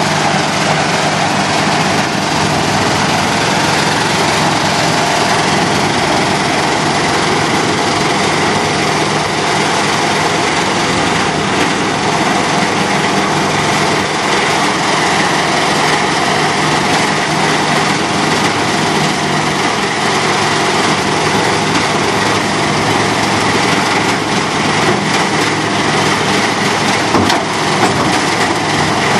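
Haybuster IG-11 tub grinder running steadily at working speed: its 300-hp John Deere six-cylinder diesel engine and hammermill make a loud, even machine noise with a constant hum.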